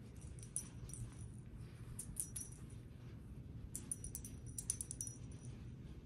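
Silicone heart-shaped pop-it fidget being pressed with the fingers, its bubbles popping as clusters of small, sharp, high clicks: about a second in, around two seconds in, and a longer run from about four to five seconds.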